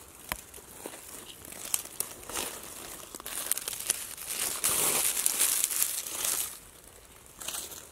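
Dry fallen leaves rustling and crinkling as they are handled and pushed aside around a mushroom, with scattered small snaps, the rustle thickest from about three seconds in to about six and a half.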